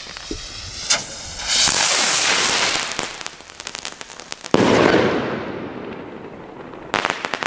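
A gold-cap Funke Crackerschweif (crackling-tail) skyrocket launches with a rushing hiss about a second and a half in, and scattered crackles follow as it climbs. About four and a half seconds in it bursts with one sudden loud bang that fades away. A quick volley of crackling pops comes near the end.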